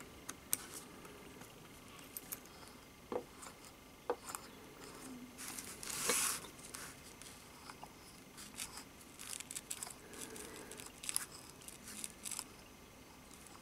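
Faint, scattered small clicks and taps of brass and steel model steam engine parts (eccentric, slip cam and crank) being handled and fitted together by hand, with a longer rustle about six seconds in.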